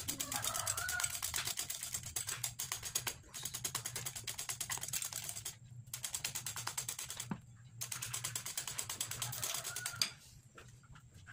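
Wire balloon whisk beating eggs and sugar by hand in a ceramic bowl until pale and foamy, its wires clinking against the bowl in a fast, even rhythm. There are a few brief pauses, and it stops about ten seconds in.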